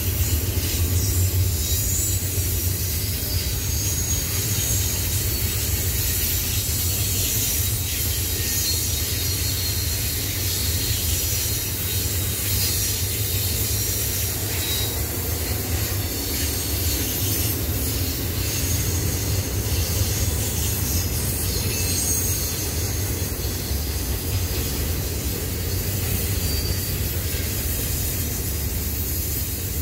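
Double-stack intermodal freight train's container well cars rolling past steadily, a low rumble of wheels on rail with a high hiss and faint, intermittent wheel squeal as the cars round the curve.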